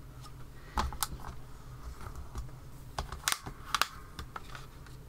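A handful of sharp clicks and taps from hands working a stamping platform: pressing a clear acrylic stamp down onto card, then lifting the hinged clear lid. The clicks fall in two clusters, around one second in and again three to four seconds in.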